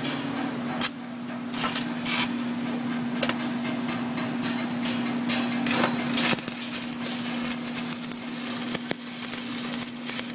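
Stick-welding arc of a 6010 rod on quarter-inch steel plate, crackling steadily with sharp pops and snaps, over a steady low hum.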